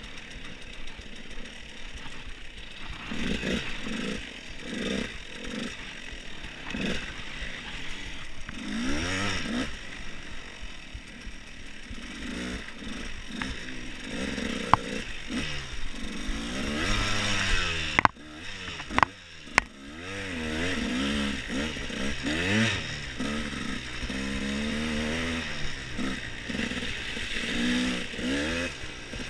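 Dirt bike engine revving up and falling back again and again as it is ridden, with a few sharp knocks about two-thirds of the way through.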